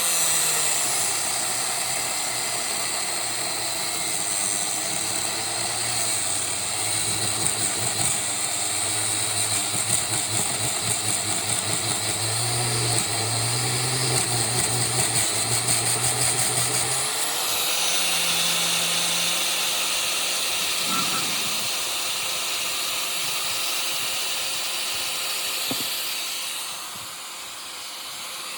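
Electric angle grinder running, its pitch pulled down and wavering as it cuts. About two-thirds of the way in it spins back up and runs free at a steady high whine, then winds down near the end.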